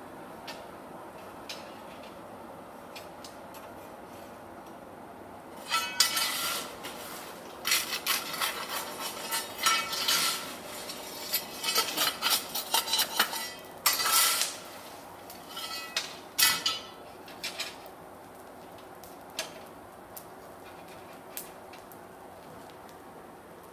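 Steel tongs and metal clattering and clinking at a coal forge: a busy run of sharp clanks and scrapes, some ringing briefly, starting about six seconds in and lasting about ten seconds, with a few single clinks either side, over a steady background hum.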